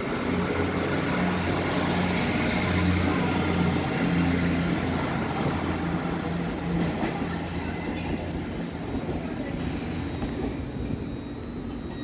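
Northern Sprinter diesel multiple unit passing close by, its underfloor diesel engines running with a steady low hum. The sound is loudest a few seconds in and fades as the train moves away.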